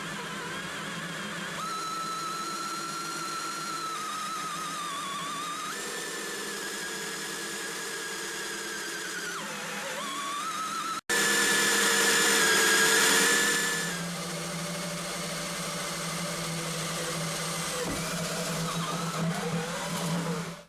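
Electric drill with a small hole saw boring the small lock hole in a wooden door, its motor whine steady but sagging and recovering in pitch as the saw bites. About eleven seconds in it cuts out for an instant, then comes back louder for a few seconds before settling again.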